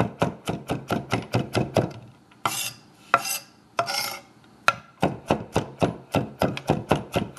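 Chef's knife chopping green onions on a wooden cutting board, rapid even strikes at about five a second. About two seconds in the chopping stops and the blade scrapes twice across the board, gathering the pile, before the rapid chopping starts again.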